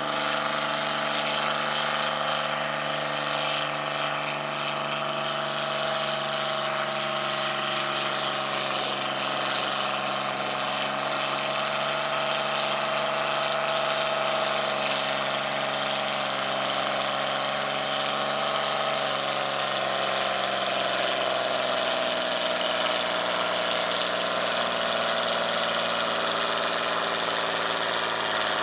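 John Deere farm stock pulling tractor's engine running hard under full load as it drags a weight-transfer sled, its pitch sagging slightly in the last third as the sled bogs it down.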